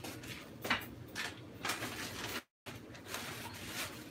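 A few faint knocks and clatters of things being handled around a kitchen, over a low background hiss. The sound drops out completely for a moment about two and a half seconds in.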